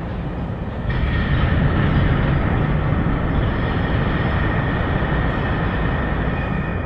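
A dense, steady rumble with a faint high tone over it, swelling about a second in and easing off slightly near the end.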